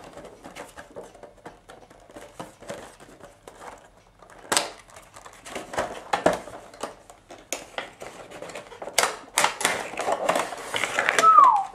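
Cardboard Funko Pop box being opened by hand and its clear plastic insert slid out: scattered crinkles, taps and scrapes of card and plastic, with a short falling squeak near the end.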